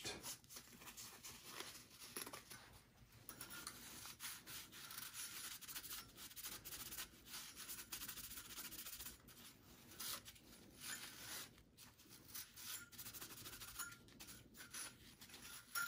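Faint rubbing of a paper towel across the base of a CPU cooler, wiping it clean in many short, irregular strokes.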